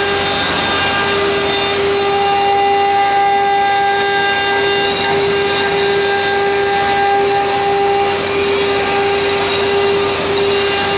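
Mini CNC router's 2.2 kW water-cooled spindle running with a steady whine as its bit engraves a wooden cylinder turning on the rotary axis, with the noise of the cut into the wood.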